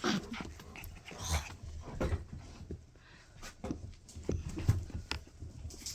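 Five-week-old F1 mini Goldendoodle puppies moving about in their pen: scattered light knocks and scuffles with brief small puppy sounds.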